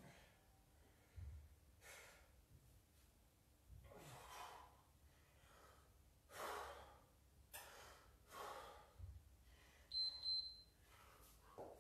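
A person breathing hard from kettlebell exertion, with several audible breaths a second or two apart. A short, high electronic beep sounds near the end.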